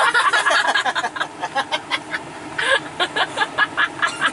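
People laughing inside a car, a fast run of short high-pitched laughs, several a second.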